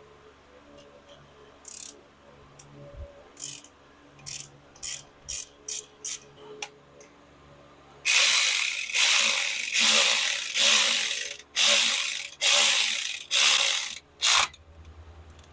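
Ratchet wrench clicking as starter motor bolts are run in: light, scattered clicks at first, then about halfway through a run of seven long, loud strokes of ratchet clicking.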